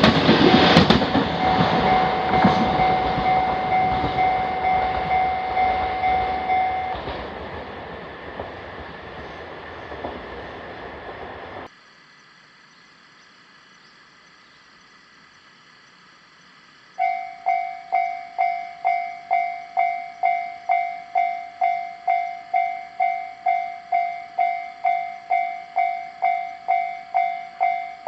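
A train runs past a Japanese railway level crossing while the crossing's warning bell rings. The train noise fades over several seconds, then cuts off abruptly. After a few quiet seconds, a crossing warning bell starts up, ringing a steady clear tone about twice a second.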